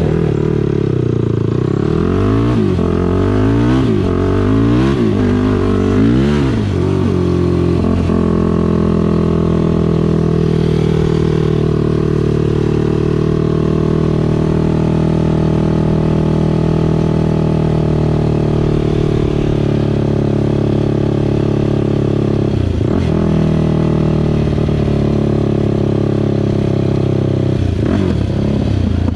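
ATV engine running loud and close under way. For about the first seven seconds the revs climb and fall about four times, then it holds a steady pitch at speed, with a brief dip in revs about three-quarters of the way through.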